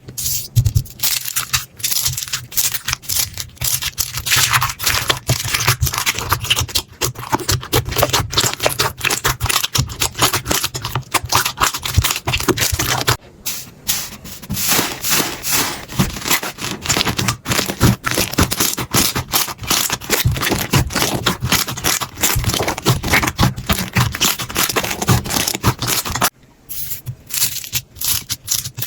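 Slime being squeezed and poked by hand: dense, rapid crackling and clicking, with two brief breaks about 13 and 26 seconds in.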